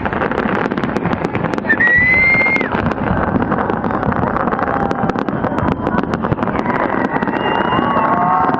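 Fireworks display going off continuously: dense rapid bangs and crackles over a steady rumble, with a short rising whistle about two seconds in.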